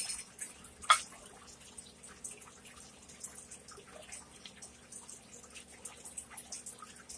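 Quiet wet eating sounds, soft chewing and lip smacks in a steady scatter of small clicks. About a second in, a single sharp clink as a glass bowl is set down on a ceramic plate.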